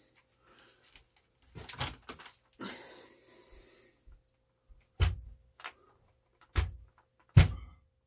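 Rustling handling noise, then three heavy thunks in the second half, the last the loudest, as a pump-action shotgun is handled against rubber-coated magnetic gun mounts on a wooden beam.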